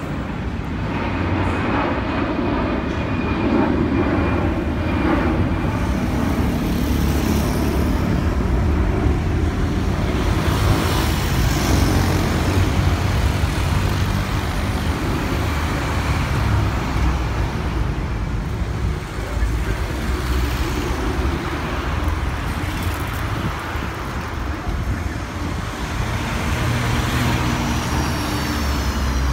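Steady low rumble of a four-engine Airbus A340-313 jet airliner (CFM56 turbofans) climbing out after takeoff. It swells a few seconds in and slowly fades as the plane draws away, mixed with street traffic noise.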